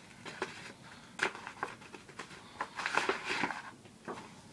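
A USPS Priority Mail envelope being opened by hand: the paper crackling and rustling with scattered sharp clicks, and a louder stretch of tearing about three seconds in.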